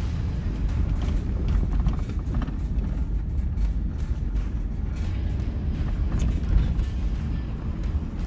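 Car rolling slowly along a gravel road, heard from inside the cabin: a steady low rumble of tyres on gravel with many small crunches and rattles.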